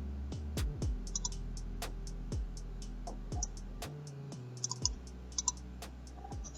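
Scattered clicks and taps of a computer keyboard and mouse, some in quick clusters, over soft background music.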